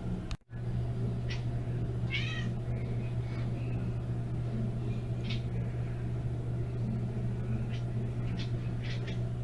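Domestic cat making a series of short chirping calls at an insect, about eight brief sounds with one longer wavering call about two seconds in. A steady low hum runs underneath.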